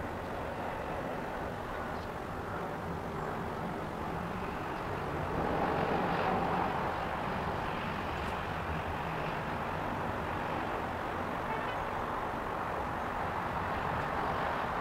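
Steady outdoor background noise, a low rumble with hiss, swelling a little about six seconds in.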